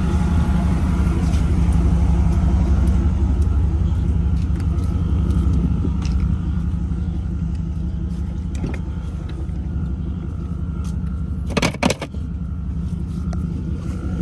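Motor vehicle engine running at a steady low idle. About twelve seconds in, a quick cluster of sharp knocks.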